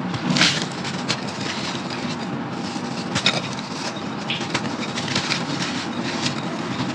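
Crunchy brown sand-clay clumps crumbling in a clay pot, with a steady gritty crunch and many sharp crackles and snaps scattered through it.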